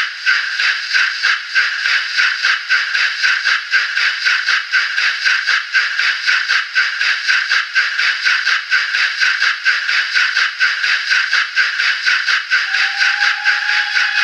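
Factory-fitted DCC sound decoder of a Graham Farish N gauge GWR Castle class steam locomotive playing a steady rhythm of exhaust chuffs, about three a second, thin and without bass from the model's tiny speaker. Near the end a steady pitched tone, the loco's whistle, comes in over the chuffs.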